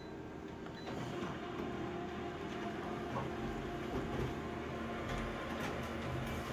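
Colour office copier starting a copy job: after a faint high beep, its motors and rollers start up about a second in and keep running steadily, with a few low knocks as the sheet is fed through to the output tray.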